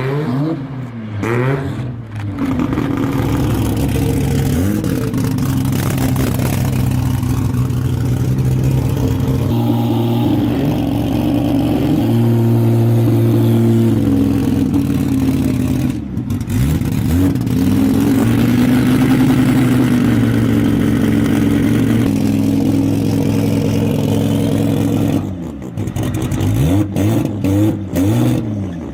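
A car engine running and being revved, its pitch sweeping up and down near the start, once again in the middle and several times near the end, and held fairly steady in between.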